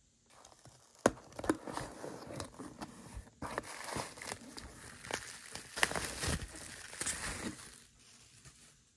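A cardboard mailer box being opened and a phone pulled out of bubble wrap and unwrapped: crinkling plastic and cardboard scuffs with sharp clicks. The handling stops about a second before the end.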